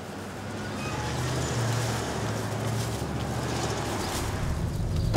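A steady low vehicle rumble mixed with soft background music, slowly growing louder, with one sharp click at the very end.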